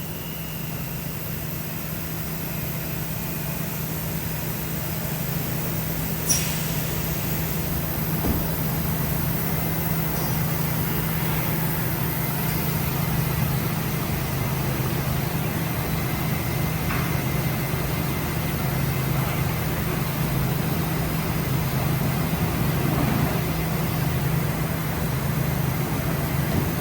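Parpas Diamond Linear 5-axis gantry machining center running with a steady low hum, with one sharp click about six seconds in.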